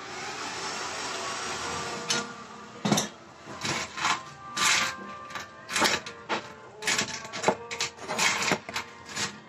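A circuit board fitted with a finned aluminium heatsink being handled and turned in the hand. A steady rubbing hiss lasts about two seconds, then come about a dozen irregular clicks and knocks.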